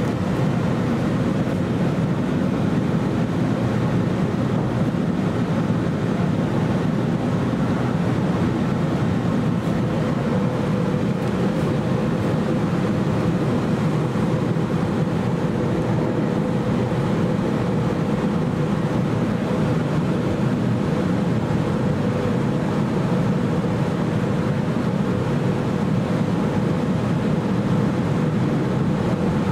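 Interior running noise of a Sydney Trains A set Waratah double-deck electric train travelling at speed: an even, steady rumble with a faint steady whine over it.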